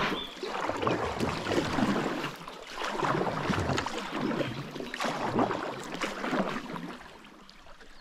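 Kayak paddle strokes: the blades dip and splash in the water, dripping between strokes, about once a second, easing off near the end as the kayak glides.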